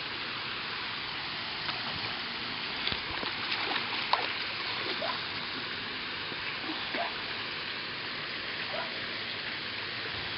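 A hooked bass splashing and thrashing at the pond surface as it is played to the bank, giving scattered small splashes and water plinks over a steady hiss.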